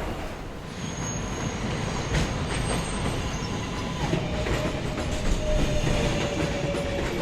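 New York City subway train running, a steady low rumble with a thin, steady tone above it that steps down in pitch about four seconds in.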